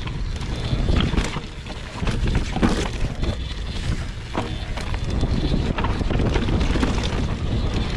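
Mountain bike descending a dirt trail at speed: wind buffeting the microphone over the rumble of tyres on dirt and roots, with frequent short clicks and rattles from the bike.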